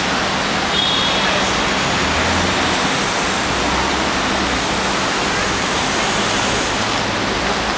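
Steady rushing roar of busy city street traffic.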